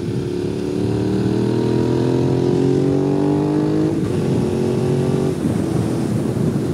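2005 Suzuki SV650's fuel-injected V-twin engine pulling hard under acceleration, its pitch rising steadily through a gear. About four seconds in the pitch drops sharply at an upshift, then it drops again a little after five seconds.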